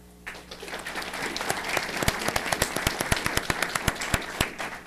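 Audience applauding in a meeting room: many people clapping, starting suddenly and dying away near the end.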